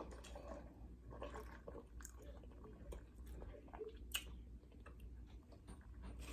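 Close-up chewing: soft, wet mouth sounds and scattered small clicks as a glazed donut and fried chicken sandwich is eaten.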